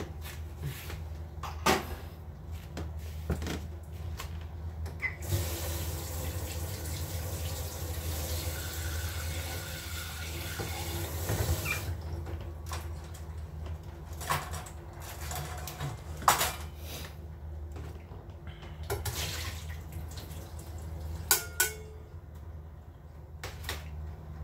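Kitchen tap running into the sink for about six seconds, starting about five seconds in. Scattered sharp knocks come before and after the running water, over a steady low hum.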